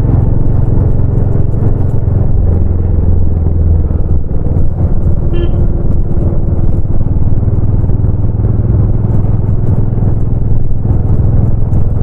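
Exhaust of a Royal Enfield Bullet 350, a single-cylinder four-stroke, running under way while riding. The engine note eases about four seconds in and picks back up a couple of seconds later.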